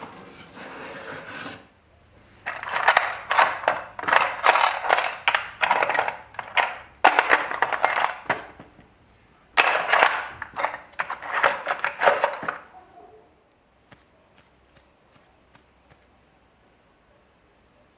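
Small metal parts clattering, clinking and scraping as they are handled on a hard work surface, in several bursts, then a few faint light ticks near the end.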